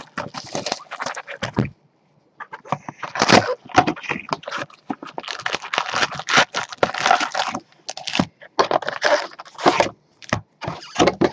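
Crinkling and rustling of plastic wrapping and trading-card packs as a Panini Prizm basketball hobby box is unpacked by hand, the packs pulled out and stacked. It comes in quick scratchy handfuls, with a short pause about two seconds in.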